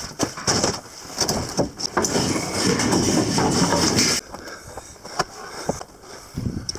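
Footsteps crunching through packed snow while a sheet of plywood is carried, with handling knocks. About two seconds in, a loud rushing noise starts and stops abruptly about two seconds later.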